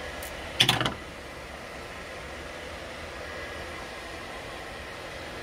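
Steady background hiss while hands work a fuel injector hose, broken once by a short, sharp clatter about half a second in.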